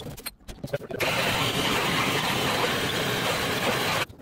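Handheld MAP-gas torch burning with a steady hiss, the flame used to solder the copper supply pipes to the shower valve. It starts about a second in and cuts off abruptly just before the end, after a few light knocks of handling.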